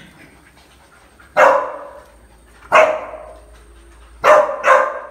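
A dog barking four times, loud sharp barks, the last two in quick succession.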